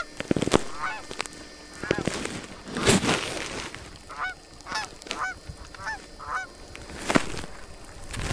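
Canada geese honking: a flock calling over and over in short, bent honks. A few loud sharp sounds break in among the calls, about half a second in, near three seconds and about seven seconds in.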